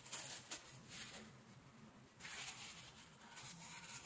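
Faint handling noises: a wooden stick scraping epoxy onto a small plastic pump part, and a paper tissue rustling. They come as several short scratchy bursts, with a small click about half a second in.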